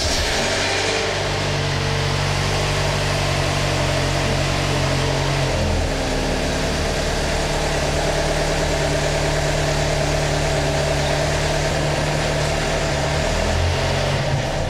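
Jeep Wrangler engine idling steadily just after being started, with the idle shifting slightly a couple of times.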